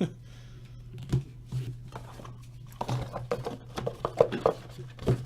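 Trading cards and cardboard card boxes being handled on a table: a few taps early, then from about halfway a busy run of small clicks, taps and rustles, over a steady low hum.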